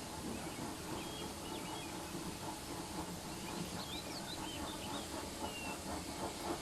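Steam locomotive running with a steady rush of steam, while birds chirp in short bursts a little after the start and again past the middle.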